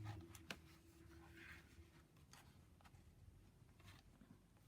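Near silence, with a faint tap about half a second in and a brief faint rustle of card being handled and pressed into place.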